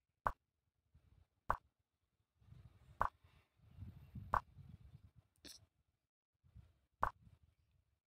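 Chess program's move sound effect: five short clicks at uneven gaps as pieces are moved on the board, with a faint low rumble between them.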